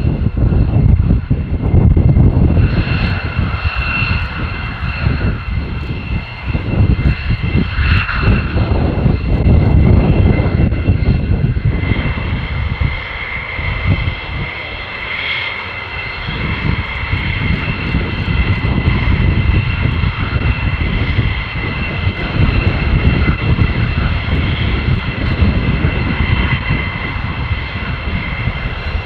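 Polish Air Force F-16 fighters taxiing at low power, their F100 turbofans giving a loud, steady high whine over a deep rumble that swells and eases as each jet passes.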